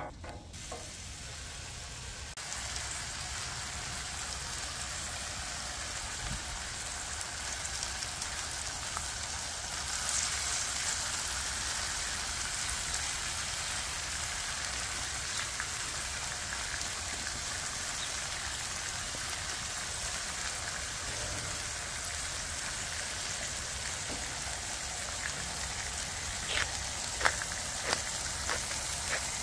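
Food sizzling steadily on a Blackstone flat-top griddle, with a few sharp clicks near the end.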